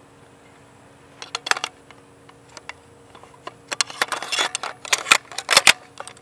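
Metal clicks and rattles of a DRD Tactical M762 takedown rifle's barrel-and-handguard assembly being fitted back into its receiver: a few light clicks, then a denser clatter of metal on metal from a little under four seconds in.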